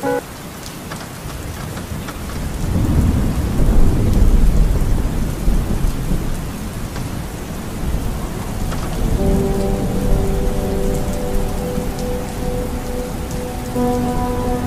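Heavy rain falling on a car's roof and windscreen, heard from inside the car, with a low rumble of thunder about three to five seconds in.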